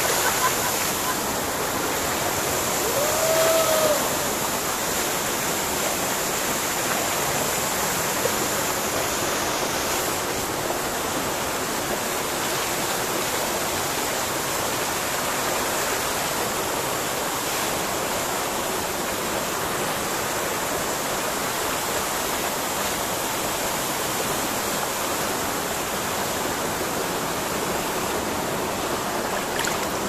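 Waterfall pouring into a bathing pool, a steady rush of falling water, with a short call heard about three seconds in.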